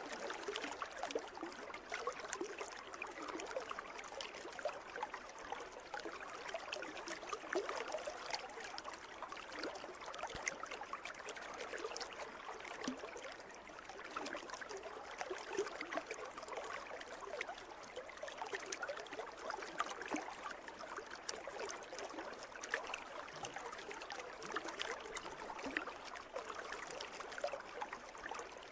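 Water moving in a pool: a steady splashing and trickling, full of small droplet ticks.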